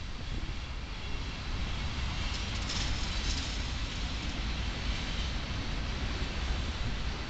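Fire truck engine idling: a steady low rumble with an even hiss over it.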